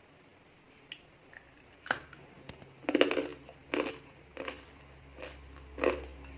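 Crisp peanut candy (kadalai mittai) crunching, about seven sharp crunches a half-second to a second apart, the loudest about three seconds in, with a faint low hum under them.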